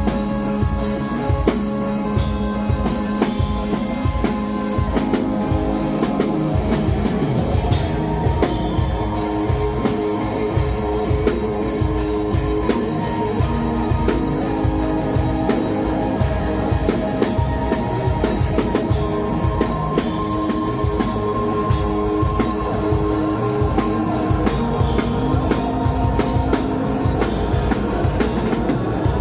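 Rock music with a drum kit and guitar playing a steady, driving beat.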